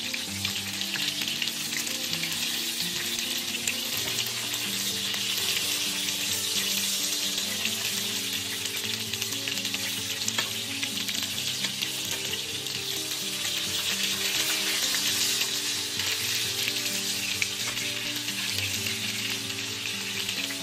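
Egg-battered fish fillets frying in oil in a pan: a steady, crackling sizzle.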